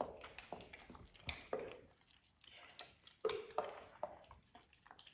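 German Shorthaired Pointer eating pieces of steak off a plate: faint, irregular chewing and mouth smacks.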